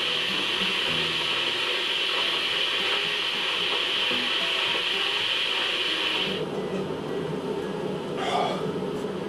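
Electric kettle heating water toward the boil with a steady hiss and rumble. About six seconds in the high hiss drops away, leaving a lower rumble.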